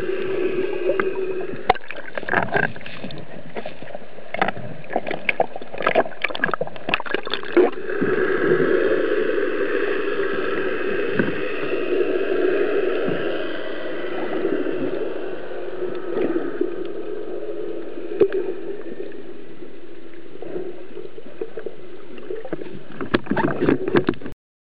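Muffled underwater noise picked up by a camera in a waterproof housing: a steady watery hiss and rush, with a flurry of clicks and knocks a couple of seconds in and again near the end. The sound stops abruptly just before the end.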